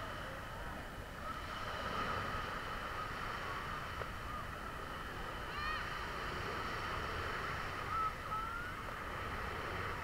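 Quiet beach ambience: a steady hiss of wind and lapping water, with faint short high chirps scattered throughout and one brief rising call about halfway through.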